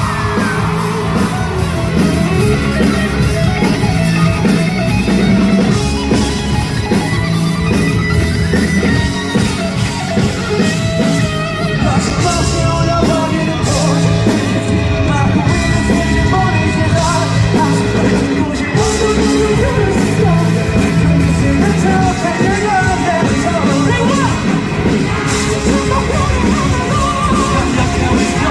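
Rock band playing live, loud and continuous.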